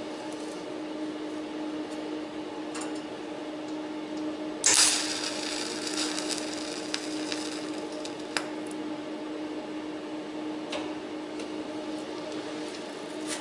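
MIG welder tack-welding a thin sheet-steel patch panel: the arc strikes about four and a half seconds in and crackles and sizzles for a second or two, then stops. A steady hum runs throughout, with a few short clicks.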